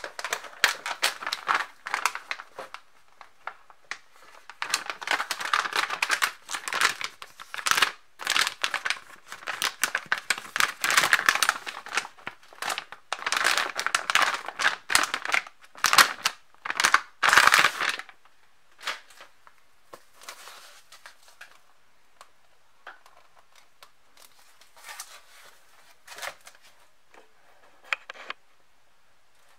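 Anti-static plastic bag crinkling and crackling as a motherboard is handled in it, dense and loud for about the first eighteen seconds. After that only sparse, softer rustles and handling noises.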